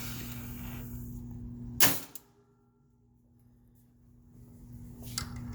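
GE AKR-30/50 power circuit breaker being closed by hand: the charged closing springs release and the mechanism shuts with one loud, sharp clack about two seconds in. A steady hum sounds before the clack, and a few faint clicks follow near the end.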